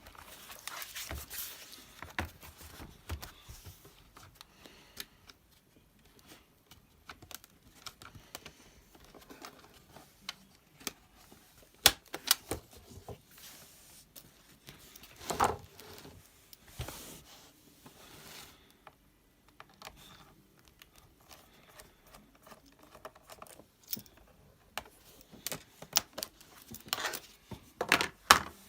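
Hands working on an HP ProBook 450 G2 laptop: scattered small clicks, taps and rustles of plastic casing and small parts. There is a sharp click about twelve seconds in, a louder scrape a few seconds later, and a cluster of clicks near the end.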